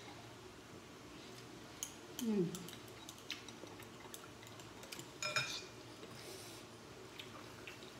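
Chopsticks and spoons clicking against glass bowls while noodle soup is eaten, with a short slurp about five seconds in. A brief falling vocal sound comes about two seconds in.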